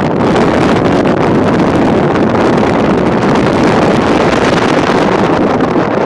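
Strong wind buffeting the microphone: a loud, steady, rumbling wind noise.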